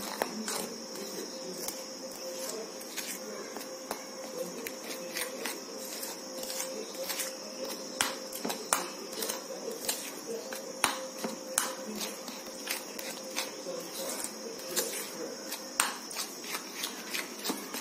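Metal spoon stirring a thick chocolate cake batter in a bowl, with irregular clicks and scrapes of the spoon against the bowl, over a steady faint high-pitched hiss.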